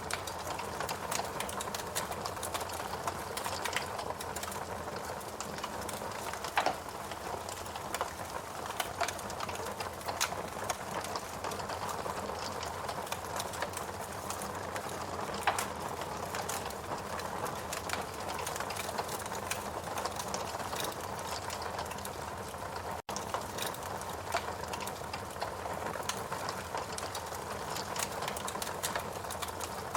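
Wood fire crackling in a fireplace: a steady hiss of burning logs with frequent small snaps and a few louder pops, the sound dropping out for an instant about two-thirds of the way through.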